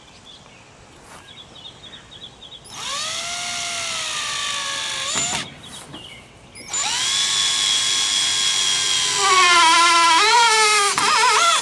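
Cordless power drill driving a deck screw into wood: two runs of the motor whine, the second one slowing and wavering in pitch as the screw bites in and the drill strains.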